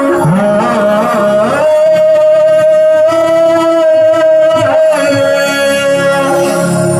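Marathi devotional bhajan: a singer with instrumental accompaniment, the melody bending through a run and then holding one long note for a few seconds.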